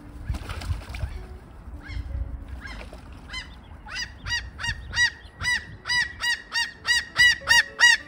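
A gull calling a fast series of loud, yelping notes, about three a second, growing louder toward the end.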